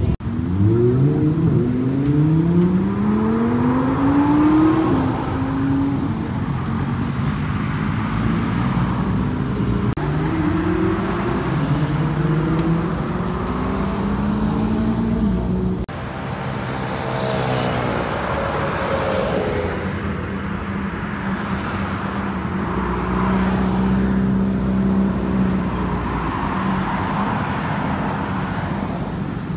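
BMW superbike engines with Akrapovič exhausts accelerating hard, the pitch climbing and dropping back at each upshift. About halfway in, the sound cuts to another bike passing by, its note falling, then running at a steadier pitch.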